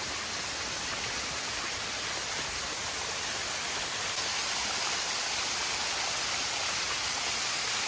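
Small waterfall: water falling and rushing steadily.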